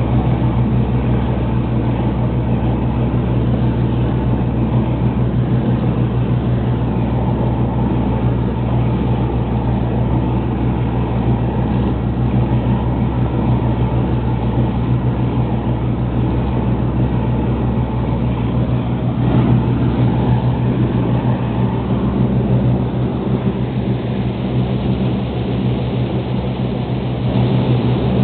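Lobster boat's inboard diesel engine running steadily under way at cruising speed, a constant low drone, with the rush of the churning wake mixed in.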